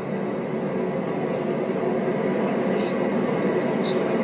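Steady rushing noise with a low hum, unchanging throughout, with a few faint high chirps in the second half.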